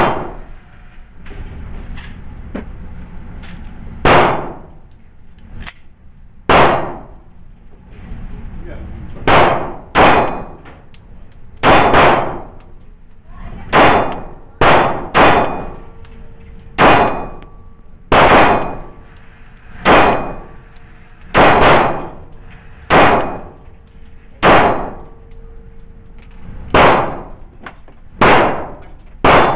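Pistol shots fired slowly at an indoor range, each a sharp crack followed by a short echo off the walls. There are about eighteen shots at uneven intervals of one to two seconds, with a few coming close together in pairs.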